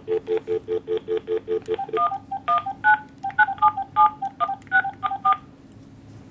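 Cell phone on speakerphone dialing: about two seconds of rapid short low beeps, then a quick string of touch-tone (DTMF) beeps as a phone number is keyed in.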